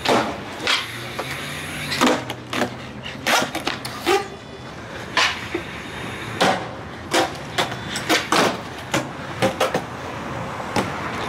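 Skateboards on a concrete sidewalk: wheels rolling with a steady low rumble, and a string of sharp clacks, about a dozen and a half, as boards are popped, land and slap the ground during trick attempts.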